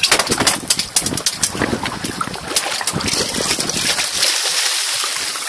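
Wind buffeting the microphone with irregular knocks. From about three seconds in comes a steady splashing hiss as a hooked fish is hauled up on a hand line and thrashes at the surface beside the boat.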